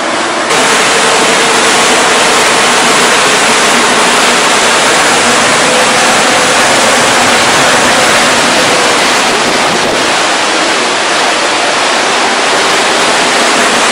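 Steady loud rushing of water churning in a passenger ferry's wake, mixed with wind on the microphone.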